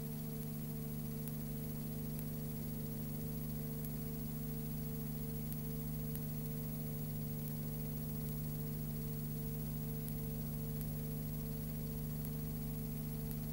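Steady hiss with a low electrical hum and a faint pulsing tone, and no other sound: the noise floor of a Super 8 cine film transfer.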